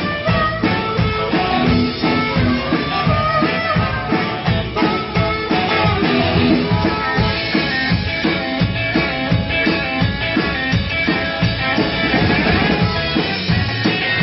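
Live rock band playing loud electric guitars, bass and a drum kit, with a steady driving beat.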